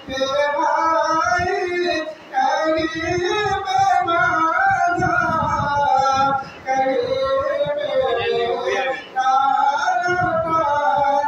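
A man singing in long, held melodic phrases into a microphone, pausing briefly for breath about two, six and a half and nine seconds in.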